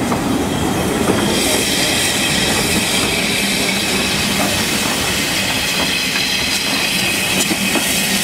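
Kerr Stuart-built NG4 4-6-2T narrow-gauge steam tank locomotive heard at close range, with a steady hiss of steam setting in about a second in and a few light metallic clanks.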